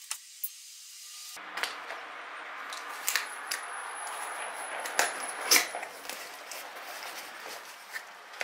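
Small cardboard box being opened by hand: cardboard flaps and packing rustling and scraping, with a few sharp taps and clicks about three seconds in and again around five seconds in.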